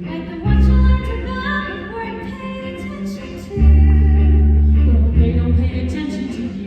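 Musical-theatre music: singing over an instrumental accompaniment, with deep held bass notes that come in loudly twice, about half a second in and again at about three and a half seconds.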